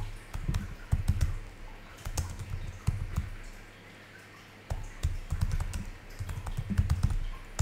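Typing on a computer keyboard: a run of quick key clicks, with a short pause around the middle before the typing resumes.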